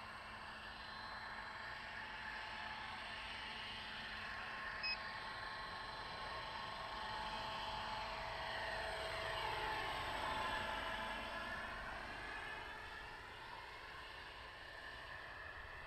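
Electric 600-size RC helicopter (a T-Rex 600E in a scale MD500E body) in flight: a steady motor-and-rotor whine that grows louder as it passes close, about ten seconds in, then fades off.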